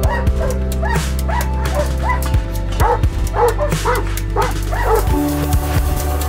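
Dogs giving a dozen or so short, high-pitched calls over background music.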